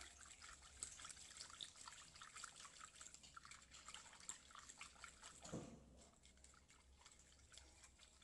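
Faint sloshing and light clicking of a silicone whisk stirring warm milk, sugar and yeast in a glass bowl, growing sparser a little past halfway.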